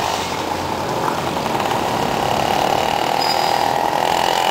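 Fire truck engine running as the truck drives away along the road, a steady rumble of engine and traffic noise.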